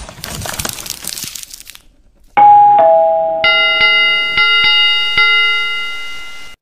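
Edited sound effects: a brief whoosh, then a falling two-note ding-dong chime, then about five bell-like strikes that ring on and fade away.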